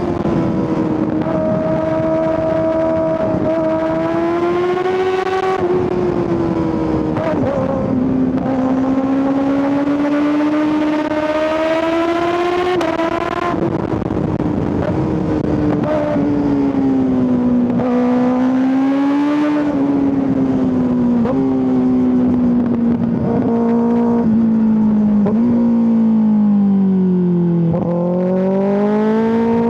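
2025 Kawasaki ZX-6R's 636 cc inline-four engine and exhaust pulling through the gears, its pitch climbing and falling as the throttle opens and closes. The throttle is shut briefly about five and thirteen seconds in, and near the end the pitch dips low and then rises again.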